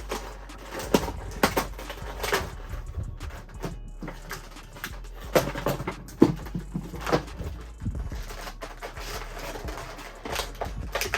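Plastic and cardboard action-figure packaging being handled and pulled open, with irregular crinkles, clicks and snaps.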